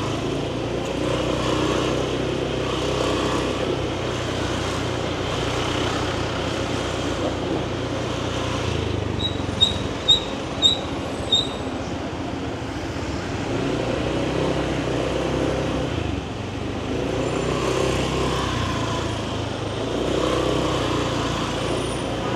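Motor scooter running through city traffic, its engine pitch rising and falling as it speeds up and slows down. About ten seconds in comes a quick run of five short, high beeps.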